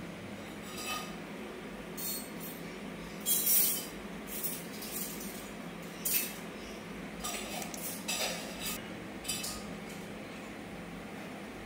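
Laptop keys being pressed: about ten short, sharp clicks at irregular intervals, the loudest a quick double clack about three and a half seconds in, over a steady low hum.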